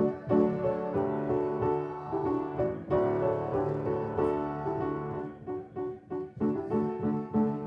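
Solo piano playing, with chords and melody notes struck in a steady flow.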